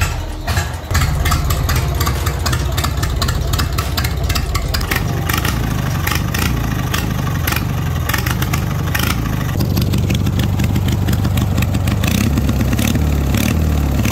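Lawn tractor engine running steadily, louder from about a second in, with rapid irregular clicking over it.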